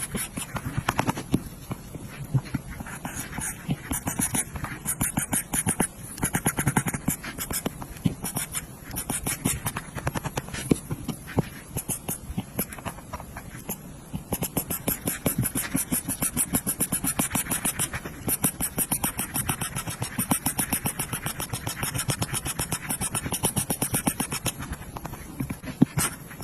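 Apple Pencil tip tapping and scratching on an iPad's glass screen in quick, rhythmic back-and-forth strokes, as when colouring in an area.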